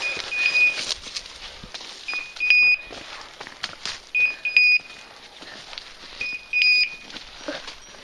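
A hunting setter's beeper collar sounding in point mode: short, high, loud beeps in groups of two or three, about every two seconds, the signal that the dog has stopped on point. Twigs and dry brush crackle and snap as someone pushes through the undergrowth.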